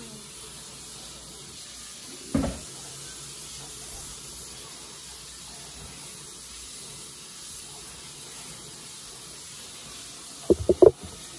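Steady hiss of a kitchen tap running into the sink, with a single knock about two seconds in and a quick run of loud clattering knocks near the end.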